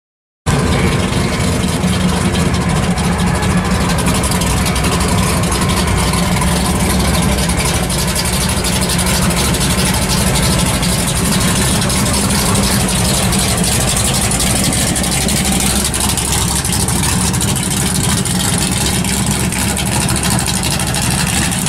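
Dodge Coronet muscle car's V8 exhaust idling steadily as the car rolls slowly past.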